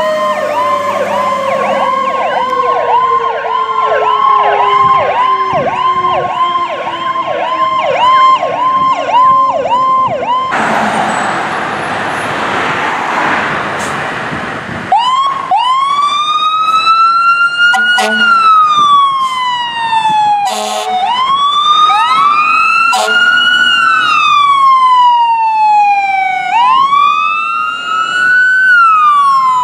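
Fire engine sirens. A fast electronic yelp, about two cycles a second, runs over a second siren tone sliding steadily downward. About ten seconds in, that gives way to a few seconds of loud rushing noise. Then a slow siren wail rises and falls over several seconds at a time, with brief loud blasts cutting through it three times.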